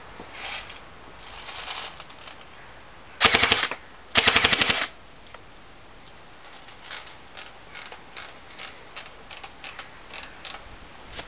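G&G TR16 A3 electric airsoft rifle firing two short full-auto bursts, about half a second each and half a second apart, a rapid even rattle of shots. Fainter scattered clicks follow in the second half.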